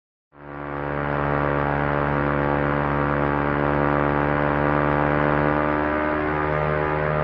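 Propeller airplane engine running steadily with a constant drone. It starts abruptly out of silence in the first moment and swells to full level within about a second.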